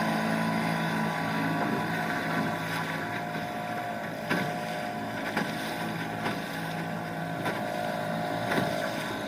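1997 Nissan 3.5 hp two-stroke outboard motor running steadily on a small aluminum canoe, its pitch dipping slightly near the end, with a few short knocks over the engine note.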